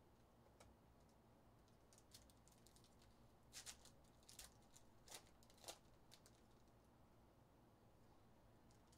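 Faint, scattered clicks and taps of trading cards and card packs being handled and set down on stacks on a table, bunched between about three and six seconds in, over a low steady hum.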